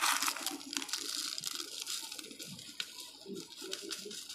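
Loose crushed-brick potting mix pouring from a plastic bowl into a small clay pot: a gritty, crackling patter of small pieces that sets in sharply and thins out over the next few seconds.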